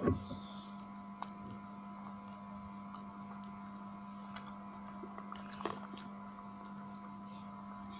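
Steady electrical hum, with faint chewing and mouth sounds of eating. A knock comes right at the start, and a smaller one about five and a half seconds in.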